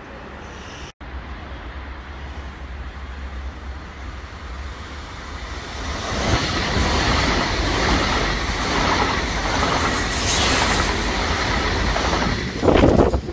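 Italo high-speed electric train passing through at speed: a growing rumble as it approaches, then steady rolling noise from about six seconds in as it runs close by. Near the end, loud gusts from its slipstream buffet the microphone.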